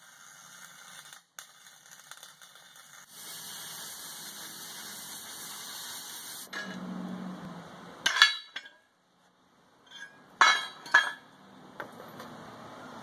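Steel work on a backhoe bucket being welded: a steady hiss for the first few seconds, then sharp metallic clinks of steel parts and tools, loudest about eight and ten seconds in.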